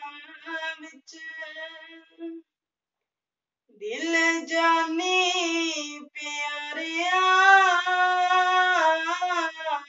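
A boy's voice singing a shabad, a devotional hymn, unaccompanied, in long held notes that waver and bend. He falls silent for about a second and a half after the first couple of seconds, then sings on.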